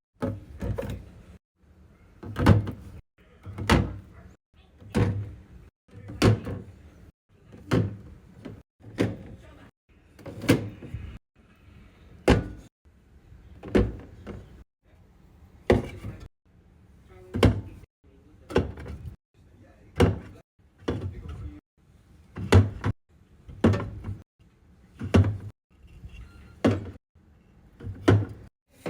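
A long run of separate knocks, about one every second and a half, each a short hard tap with a low thud: items being set down one after another while stocking a coffee-table refrigerator.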